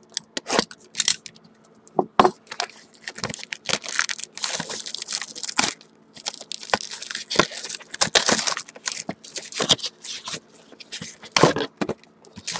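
Cellophane shrink wrap being torn and crumpled off a cardboard trading-card box: a run of crackling crinkles and sharp snaps, with the box knocking as it is turned over.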